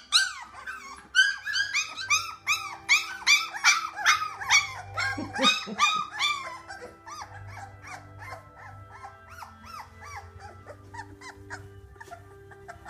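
Two-week-old Labrador puppies whining and squealing, several short rising-and-falling cries a second. The cries are loudest over the first half, then taper to fainter squeaks.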